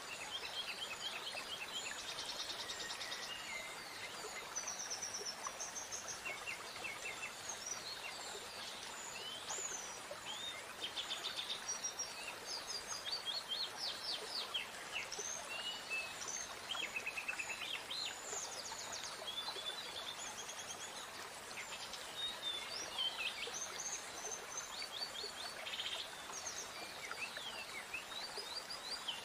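Several songbirds chirping and singing, with quick trills and short whistles overlapping one another, over a steady background hiss.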